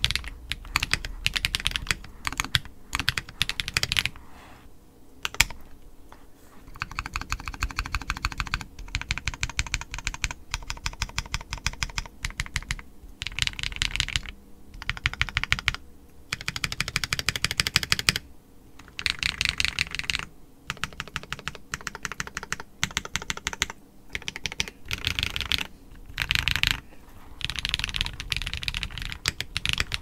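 Fast typing on a custom mechanical keyboard with lubed Glorious Panda tactile switches, GMK keycaps, and a brass plate. Runs of rapid keystrokes are broken by short pauses every few seconds.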